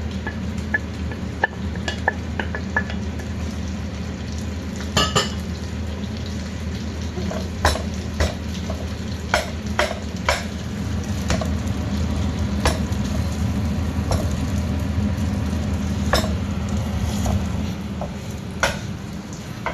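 Egg fried rice being stir-fried in a wok: a spatula scrapes and knocks against the wok at irregular intervals over steady sizzling and a low hum.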